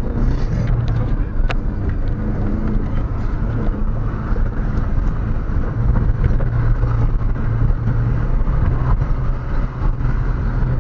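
Car engine and road noise heard from inside the cabin while driving: a steady low drone with a few light clicks or rattles.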